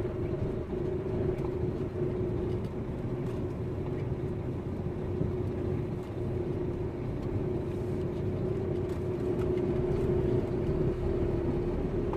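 Delivery lorry's diesel engine running with a steady drone as the truck crawls through deep standing water and mud.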